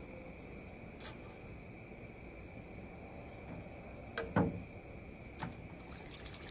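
Steady high chorus of night insects, with a few short knocks from fillet-knife work on a plastic cutting board. The loudest knock comes about four and a half seconds in.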